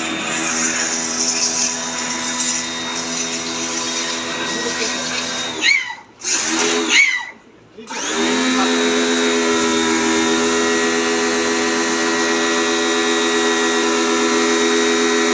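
Small electric motor running steadily with a whine. It cuts out about six seconds in, spins back up, cuts out again briefly, then spins up and runs steadily again.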